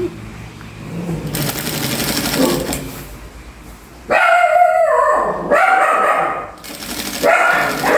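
An industrial sewing machine stitches for about two seconds. Then a pack of dogs howls and barks in two long spells, the second starting near the end. The dogs are the loudest sound.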